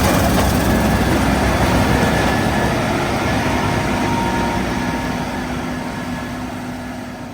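Case IH 6160 Axial-Flow combine running while harvesting wheat: a steady, dense machine noise with a few constant hums in it, fading out gradually toward the end.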